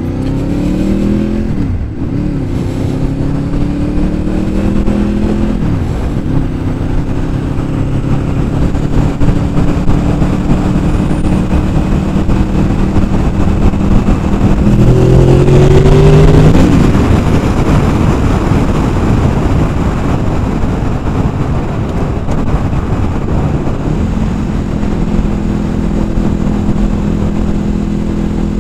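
Honda VFR800 Interceptor's V4 engine pulling through the gears. Its pitch climbs and drops sharply about 2 and 6 seconds in, runs steady, climbs hard to its loudest about 15 seconds in, drops, then holds steady near the end, over a constant rush of wind.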